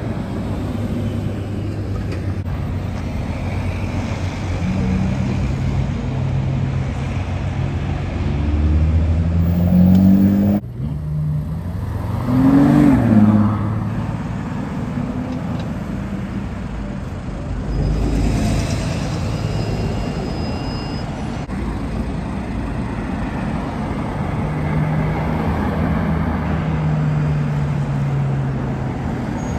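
Ferrari FF's V12 engine accelerating, its pitch climbing to a loud peak about ten seconds in before cutting off suddenly, then a short rev that rises and falls, and later a lower steady running note as it moves off with traffic.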